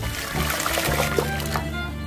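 Background music over boiling water being poured into an aluminium pot, a splashing stream that eases off about a second and a half in.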